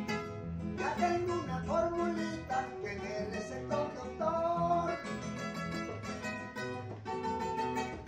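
Three acoustic guitars playing a paseo together, plucked melody over strummed chords, with a voice singing over them.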